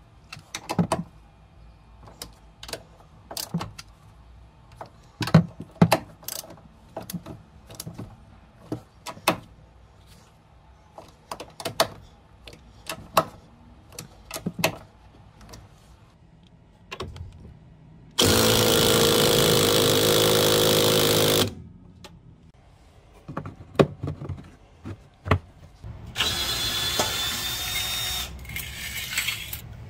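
Scattered metallic clicks and taps as a socket on an extension works the rear strut's top-mount nuts. About two-thirds of the way through a power tool runs loud and steady for about three seconds, and near the end another power-tool run with a high whine follows.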